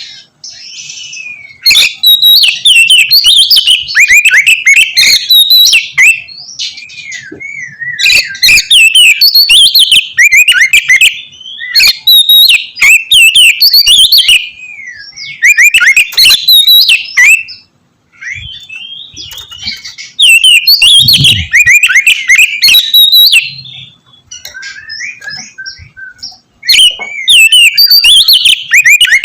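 Oriental magpie-robin (kacer) in full song. It sings loud bouts of rapid, sharp whistles and chattering notes, each a second or two long, with short pauses between them.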